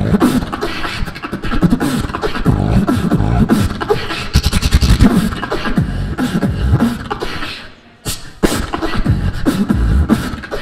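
A beatboxer performing through a handheld microphone and the hall's sound system: a fast run of vocal kick-drum and snare hits over deep bass tones. It breaks off briefly about eight seconds in, then a few more hits follow.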